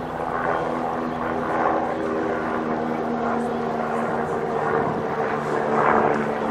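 A steady engine drone made of several held tones that waver slightly in pitch.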